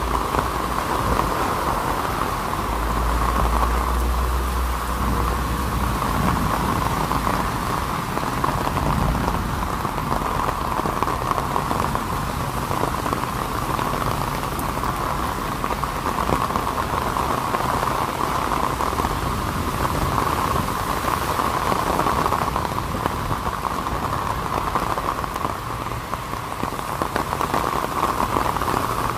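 Heavy tropical rain falling steadily on an umbrella overhead and on the wet pavement and road, with a low rumble about three seconds in.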